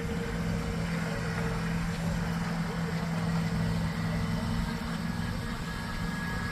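An engine running steadily at idle: a constant low hum with a rumble beneath it.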